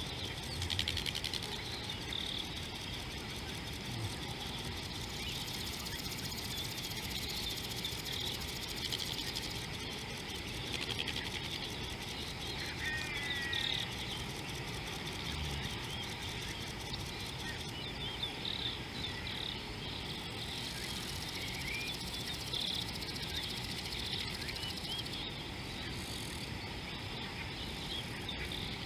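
Outdoor wildlife ambience: a steady high chirring chorus of insects with scattered bird chirps, including a short warbled call about 13 seconds in, over a faint low rustle.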